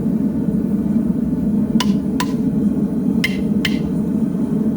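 Four sharp metallic clinks in two pairs, each pair a little under half a second apart, over a steady low rumbling noise.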